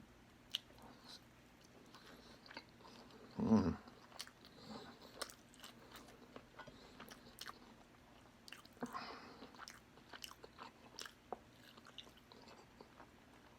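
Close-miked eating sounds of a person chewing spicy pork adobo: soft, wet mouth clicks and smacks scattered through, with one louder, lower moment about three and a half seconds in.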